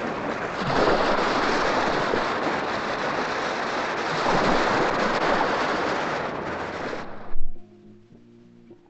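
Sea surf washing up a sandy beach, a steady rush that swells and ebbs. It cuts off abruptly about seven seconds in, followed by a short thump and then a faint low hum.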